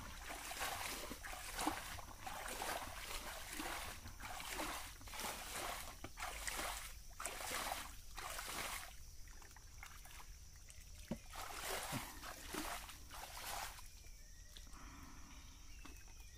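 Shallow muddy water splashing and sloshing as hands and feet stir and grope through it, in quick repeated splashes that thin out and grow quieter after about nine seconds.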